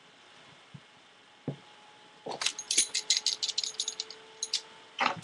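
Tippmann X7 Phenom paintball marker being handled during reassembly: a couple of small knocks, then, a little before halfway, a quick run of sharp clicks and rattles lasting about two seconds. A louder knock comes near the end.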